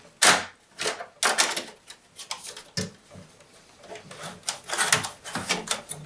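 Plastic mesh air filter of a Pohl Schmitt Cube dehumidifier being slid back into its side slot, scraping and clicking against the plastic housing in a string of short, irregular knocks.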